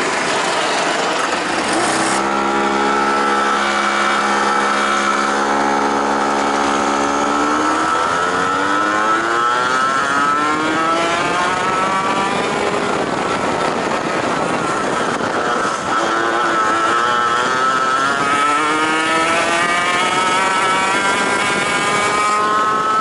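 Two-stroke racing kart engine heard onboard at high revs. In the first couple of seconds it is mixed with other karts' engines close by. Its pitch then holds steady, climbs as the kart accelerates, drops back about two-thirds in and climbs again near the end.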